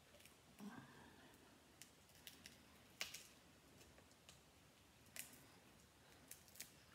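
Boiled seafood shells being cracked and picked apart by hand: scattered small cracks and clicks, the sharpest about three seconds in and again just after five seconds.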